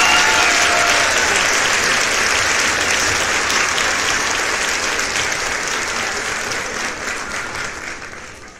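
Crowd clapping steadily, fading away near the end.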